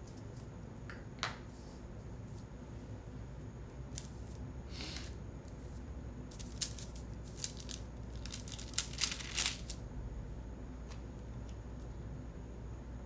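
Sticker sheets and planner pages being handled: short scattered paper rustles and small clicks as stickers are peeled and pressed down, busiest from about six to nine and a half seconds in, over a low steady hum.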